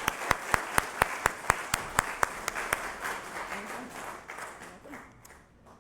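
Audience applauding, with one sharp nearby clap standing out in an even beat, about four a second, for the first three seconds. The applause dies away near the end.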